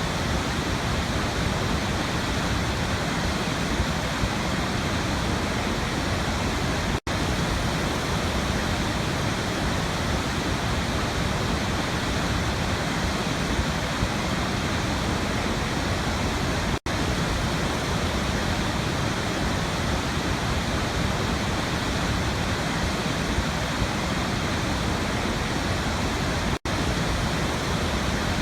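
Waterfall sound: a steady, even rush of falling water, broken three times by a momentary gap of silence.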